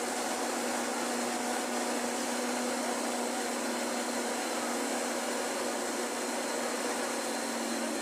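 Asphalt paver finisher's engine running steadily: an even mechanical drone with a constant low hum and no changes in pitch or level.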